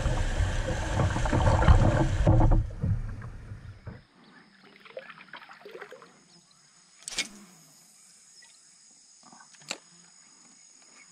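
Kayak on the river with paddling and water noise, heavy wind on the microphone, loud for the first couple of seconds and fading out by about four seconds in. Then a quiet stretch with a faint steady high-pitched whine and two sharp clicks.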